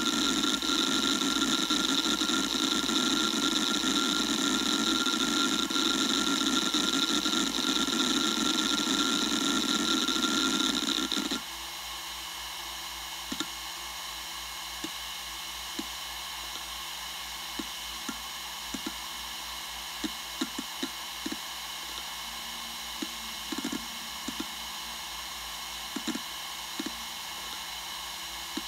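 Computer hard-drive setup with a Western Digital Raptor 10,000 rpm drive running: a loud steady whir and hiss that cuts off abruptly about eleven seconds in. A quieter steady high whine is left behind, with scattered faint ticks.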